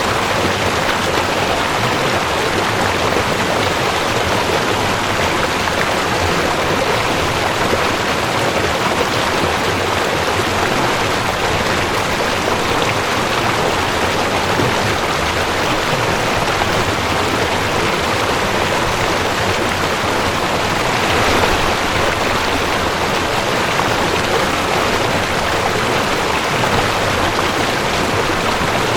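Mountain stream rushing over rocks: a steady, even water noise with a slight swell about three-quarters of the way through.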